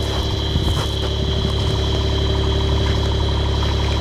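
A vehicle engine idling steadily close by, with a steady high-pitched whine running over it.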